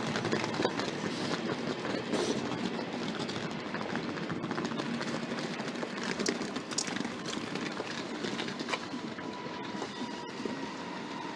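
Train running on the rails, with a steady rumble and repeated sharp clicks from the wheels. A faint, slightly falling whine comes in near the end.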